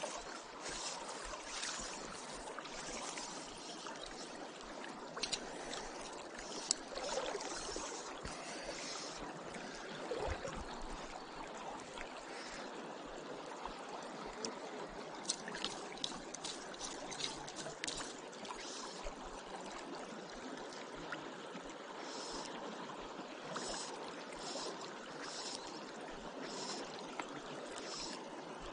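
South Platte River flowing and rippling, a steady rush of water, with a few brief faint ticks scattered through it.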